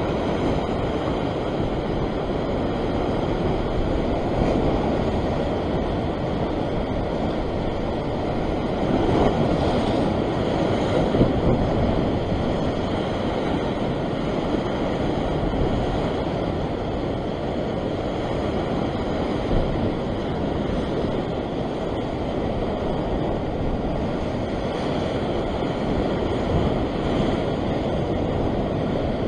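Rough sea surf breaking and surging over the rock ledge close by, a continuous wash of white water, swelling louder for a few seconds about nine seconds in.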